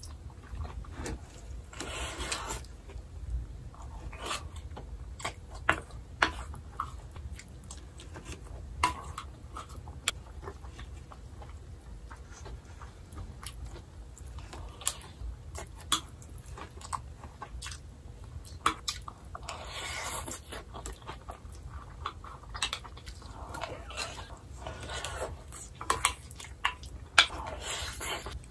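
Close-up mukbang eating sounds: chewing mouthfuls of a soft shiitake mushroom rice bowl, with scattered sharp clicks of wooden chopsticks and a wooden spoon against a ceramic bowl. A steady low hum runs underneath.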